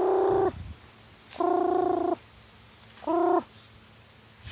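A person's voice calling the chickens to feed: three held calls at a steady pitch, the last one shorter.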